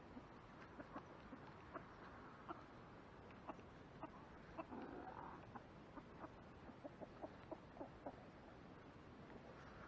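Chickens clucking faintly, with many short irregular clicks and one slightly longer, louder call about five seconds in.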